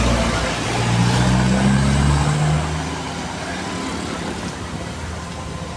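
A vehicle engine running with a low, steady hum. It is louder for the first two and a half seconds, then eases to a lower level.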